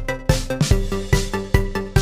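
Background electronic music with a steady beat, a little over two beats a second, over held synth notes.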